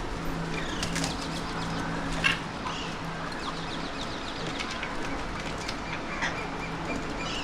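Alexandrine parakeets calling: a single sharp squawk about two seconds in, then a run of quick, soft chattering notes and a few more short calls, over a steady low hum.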